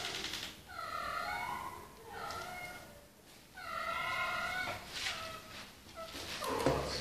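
Kitten meowing: three high, drawn-out meows, the third the longest.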